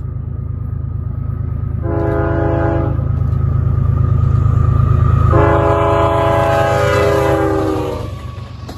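Diesel freight locomotive passing close by, sounding its multi-note air horn: a short blast about two seconds in, then a long one from about five seconds to eight. Under the horn is the deep, steady drone of its engine, loudest as it draws level.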